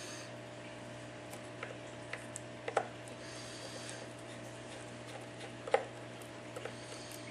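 Small, sharp clicks and taps of a precision screwdriver and tiny screws while the iPad 4's LCD retaining screws are being taken out, two louder clicks about three seconds apart among fainter ones. A steady electrical hum runs underneath.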